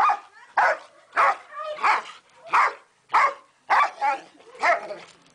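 A large dog barking over and over at a rooster it is squaring off with: about nine sharp barks, roughly one every two-thirds of a second.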